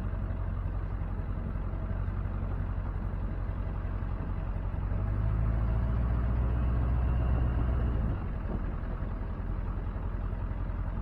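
Tractor engine running steadily as it pulls a hay tedder. It grows louder for about three seconds midway, then drops back.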